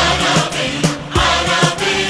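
Background music: voices singing in held notes over a steady drum beat of about two and a half hits a second.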